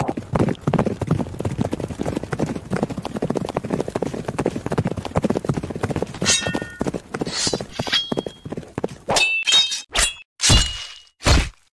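Sound effect of horses galloping, a dense clatter of hooves, with ringing metal clangs joining in partway through. Near the end the hooves stop and several separate ringing clangs follow with short silences between.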